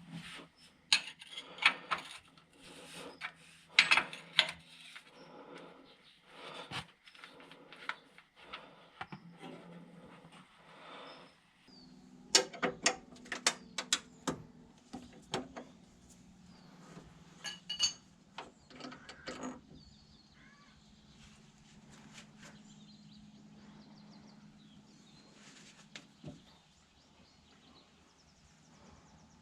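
Metal tools clinking and clattering in irregular knocks, with a steady low hum starting partway through and stopping near the end.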